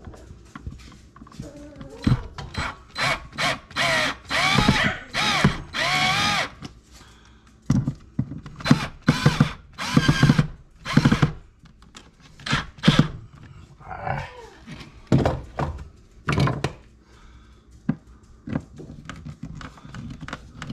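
Power drill run in repeated short bursts, its pitch rising and falling with the trigger. There is a longer stretch of runs in the first few seconds, then shorter spurts about a second apart.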